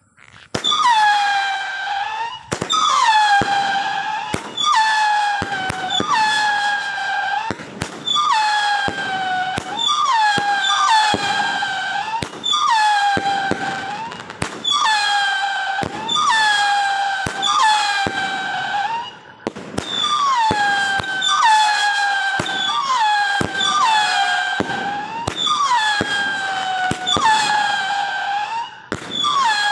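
A 36-shot whistling firework cake firing shot after shot, about one a second. Each shot is a sharp pop followed by a loud whistle that falls in pitch and then levels off, and the whistles sometimes overlap.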